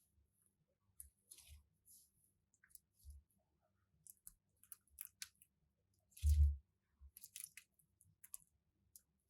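Crunchy slime being squeezed and worked by hand: scattered small crackles and clicks, with one louder squelching press about six seconds in.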